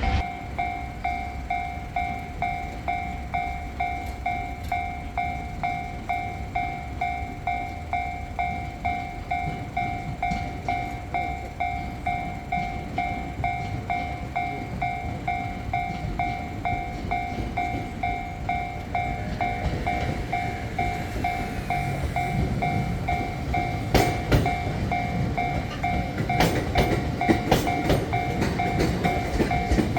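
Japanese level-crossing warning bell ringing steadily, about two strokes a second, while a train approaches in the second half. Near the end the train's wheels clack over the rail joints as it passes.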